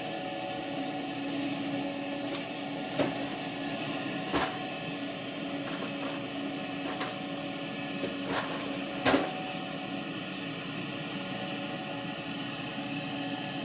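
Combine harvester running steadily with a constant engine drone, and a few short knocks at about 3, 4 and 9 seconds.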